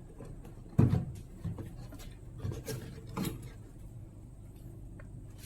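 Camera box contents and packaging being handled on a surface: rubbing and rustling, with a sharp knock about a second in and another about three seconds in.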